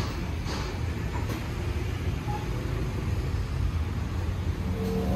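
Steady low rumble of street traffic, with motor scooters passing; near the end a vehicle engine note comes in and grows louder.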